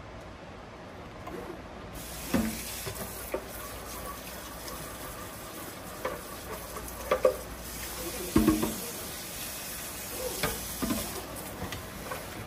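Water running steadily from a tap while a blender jar is rinsed, with several hollow plastic knocks as the jar is handled. The water comes on about two seconds in and shuts off near the end.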